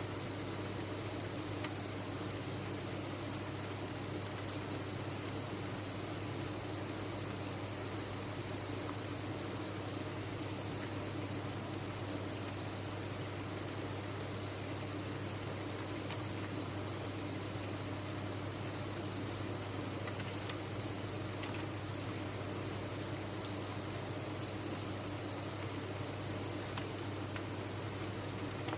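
Dense chorus of many farmed crickets chirping at once, blending into one steady, high-pitched trill without pauses.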